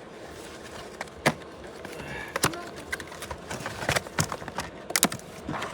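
A box and its packaging being handled and opened: about half a dozen scattered light clicks and knocks spread over several seconds.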